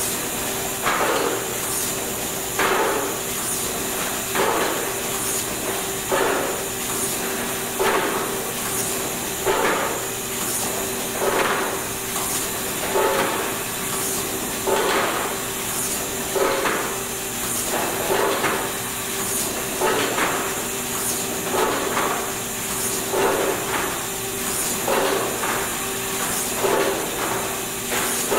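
Markem rotary golf ball pad printer running, with a steady hum and high hiss under a clack that repeats about once a second as the machine cycles.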